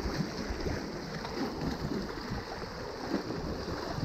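Small waves splashing and washing against the rocks of a jetty, a steady, irregular wash of water.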